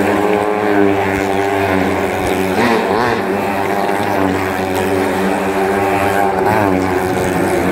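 Motorcycle engines running steadily as riders circle the vertical wooden wall of a well-of-death drum, the pitch wavering briefly twice as a bike sweeps past.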